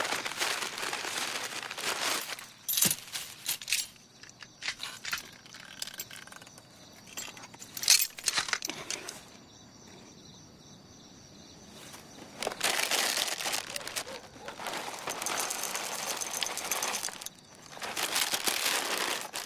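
Paper wrapping crinkling and a cardboard box rustling as things are unpacked, with a few sharp metal clicks from a metal trap being handled, the loudest about eight seconds in.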